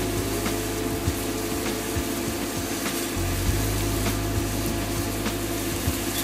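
Onion and tomato-paste gravy frying in oil in a hot pan as spices are added, with scattered light taps of a utensil over a steady low hum.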